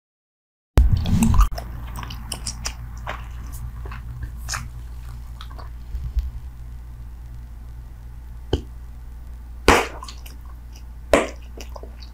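Close-miked bubble gum chewing, starting suddenly about a second in: scattered short wet clicks and smacks, with two louder smacks near the end, over a steady low hum.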